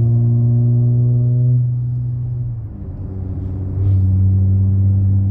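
Car engine droning through a Magnaflow aftermarket exhaust while driving. The pitch drops and the level dips a little under three seconds in, then the drone swells again at the lower pitch, as in an upshift followed by throttle.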